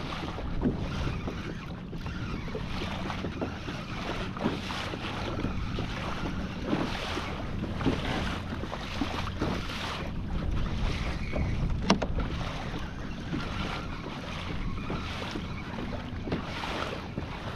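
Wind buffeting the microphone over water sloshing and splashing, with small knocks throughout and one sharp click about twelve seconds in.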